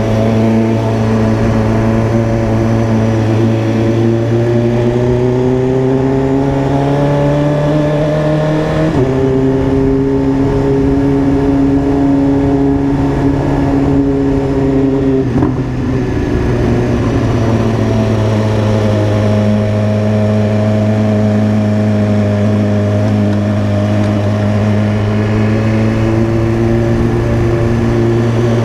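BMW S1000RR inline-four engine running under way, its pitch drifting slowly upward. The pitch changes abruptly about nine seconds in, and there is a brief dip around fifteen seconds.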